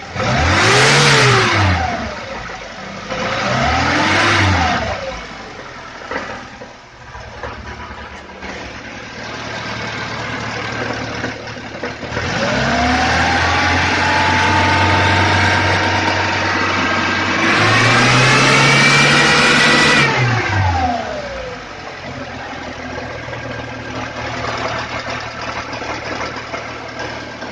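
VAZ 21011's carburetted four-cylinder engine being revved with the choke still out: two quick blips, then two longer revs held for a few seconds each, the second higher, before it drops back to a steady fast idle. It is being revved to find a knock of unclear origin, in either the engine or the transmission.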